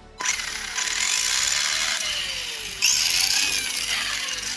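Tamiya Grasshopper RC buggy's electric motor and gearbox running under throttle, driving the rear wheels while they spin in the air. It is a steady whirring that gets louder in two steps, about a second in and just under three seconds in, with a faint whine that falls in pitch; it cuts off at the end.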